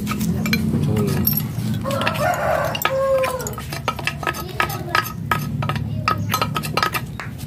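A rooster crows once, a call of about a second that rises and then falls, roughly two seconds in, over a steady low hum. A quick run of sharp clicks follows through the second half.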